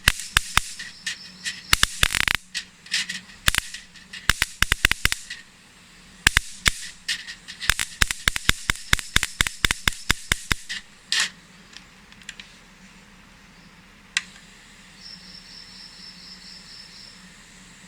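Electric mosquito racket sparking: a rapid, irregular run of sharp zapping snaps for about ten seconds over a faint high whine, then one more snap a few seconds later. The sparking shows the racket's high-voltage circuit is working.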